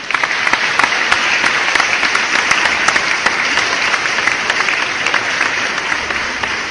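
Applause sound effect: a crowd clapping at a steady level, a dense run of overlapping claps.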